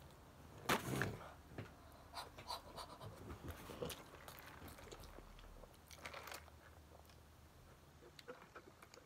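Biting into a crispy fried chicken sandwich about a second in, then chewing with faint crunches and mouth clicks.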